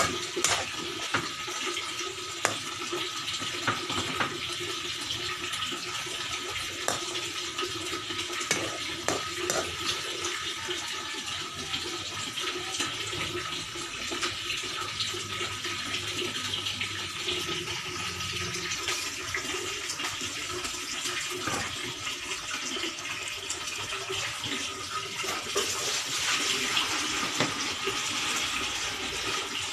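Cubed pork cooking in a metal wok: a steady sizzle and bubble, with the clicks and scrapes of a spatula in the first half. The sizzling grows louder near the end as the liquid in the pan comes to a boil.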